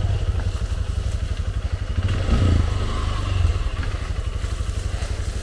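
Motorcycle engine running at low revs with a steady firing beat. The throttle is opened briefly about two and a half seconds in and again near three and a half seconds.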